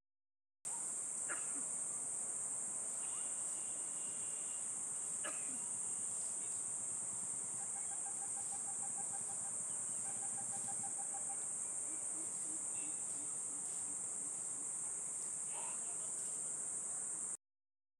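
Steady, high-pitched chorus of insects, unbroken, with the sound dropping out completely for about half a second at the start and again near the end.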